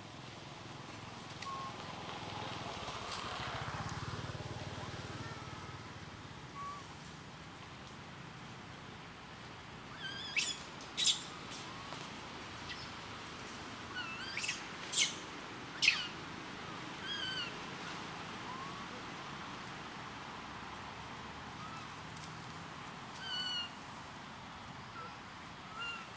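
A run of short, high animal chirps and squeaks. The loudest come as a quick cluster between about ten and sixteen seconds in, with a few softer falling chirps later. Under them is a steady outdoor hiss.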